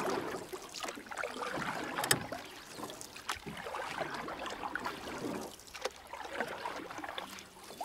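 Water sloshing and splashing, with many small clicks and knocks.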